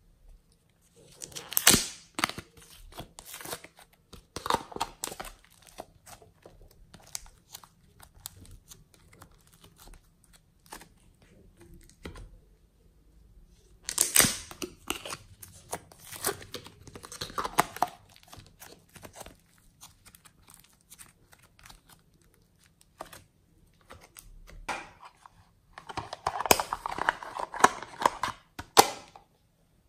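Small plastic containers and packaging being handled and opened: lids clicking and pulling off, plastic crinkling and tearing. The sound comes in three bursts with quiet pauses between.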